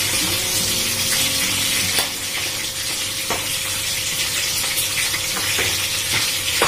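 Chicken frying in hot oil in a wok, a steady sizzle, with a couple of sharp clicks of the spatula against the pan about two and three seconds in.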